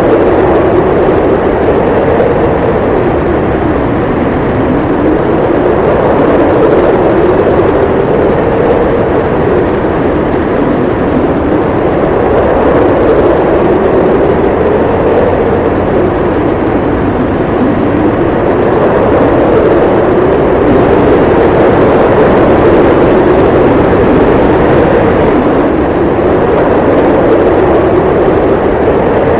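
Strong snowstorm wind howling: a steady rush with a moaning note that slowly rises and falls every few seconds.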